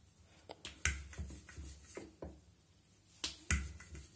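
Wooden rolling pin rolling dough on a marble board, knocking and clacking against the stone in a run of irregular sharp taps, the loudest about a second in and again near the end.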